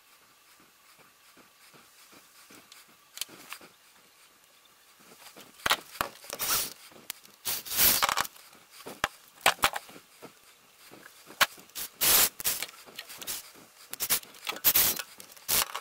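Cordless drill-driver run in short, irregular bursts, starting about five seconds in, tightening worm-drive hose clamps onto a heater hose.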